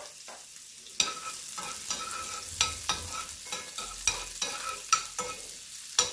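Chopped onion and garlic sizzling in a tablespoon of hot oil in a non-stick skillet. From about a second in, a utensil clicks and scrapes against the pan as it is stirred, several sharp clicks over the steady sizzle.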